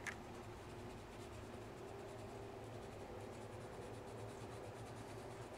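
Faint scratching of a coloured pencil on paper as it shades, over a low steady hum.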